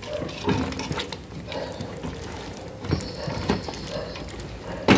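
A spoon stirring chicken pieces braising in their own liquid in a metal pot, with irregular clicks and scrapes against the pot over a steady hiss from the cooking.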